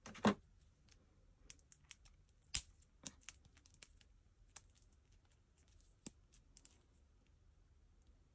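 Scattered sharp clicks and taps of a pink plastic toy tiara and headband being handled and fitted together, with the loudest clack about a quarter second in and another about two and a half seconds in.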